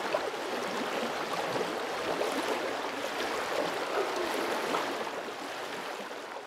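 Running water, a stream's steady rushing, beginning to fade out near the end.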